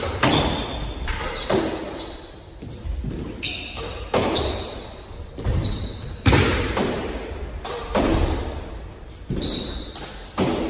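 Doubles squash rally: the ball cracking off racquets and smacking the walls, sharp hits about once a second, each echoing around the court.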